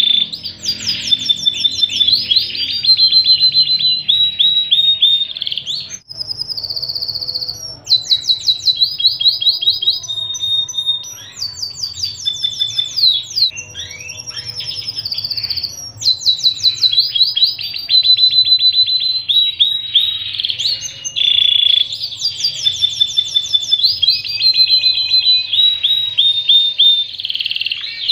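Pied domestic canary singing a long, continuous song of rapid trills and rolls, each run a fast string of identical notes before switching to the next, with brief pauses about six and sixteen seconds in.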